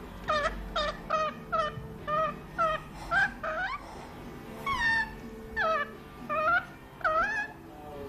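Rainbow lorikeet chattering at its reflection in a mirror: a run of about a dozen short calls that swoop in pitch. They come quickly at first, about two a second, then pause and resume more slowly.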